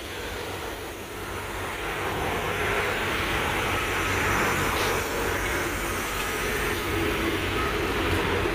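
Steady vehicle noise: a low engine hum under a rushing sound that swells and fades again between about two and five seconds in.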